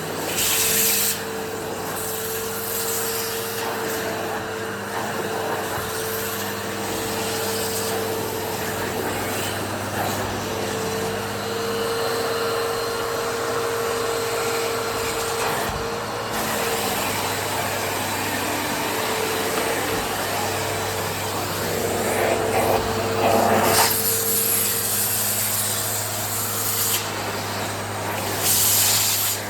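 Hoover HushTone commercial vacuum running with a steady motor whine and rushing air, suction drawn through a long extension pipe and edging tool along carpet edges. Louder hissing surges come near the start, about three quarters of the way through, and near the end.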